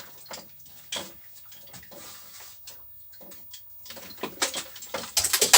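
Cables and connectors being rummaged through: irregular clicks, knocks and rattles that grow busier and louder over the last second and a half.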